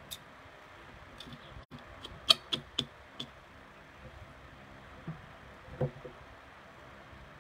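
Kitchen clatter: a quick run of four sharp knocks about two seconds in, the first the loudest, then a duller, lower knock near the six-second mark, over a steady low background noise.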